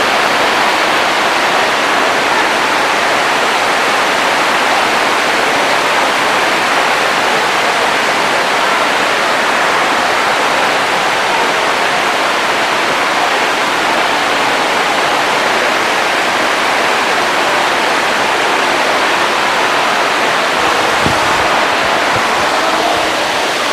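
Heavy rain heard from inside a room: a loud, steady, even hiss.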